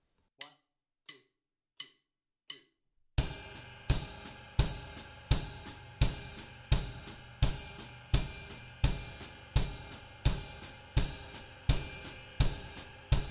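Four stick clicks count in, then a drum kit plays a slow, steady groove at about 85 beats a minute. The ride cymbal bell is struck together with the bass drum, and the foot-played hi-hat closes on the beats between, the feet alternating right, left.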